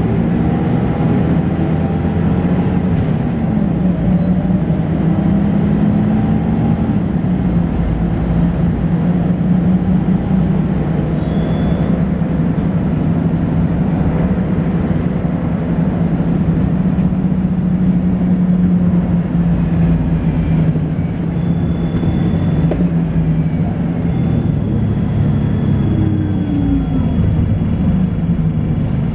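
Volvo B10BLE single-deck bus's diesel engine pulling through the ZF automatic gearbox's changes, its pitch climbing then dropping at each shift, then running steadily. A thin, high-pitched whine comes in about halfway and comes and goes over the engine: the strange high-pitched noise this bus is known for.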